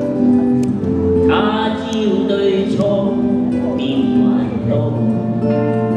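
Live pop song performance: electric guitar played with band backing of held notes, and a voice singing in places.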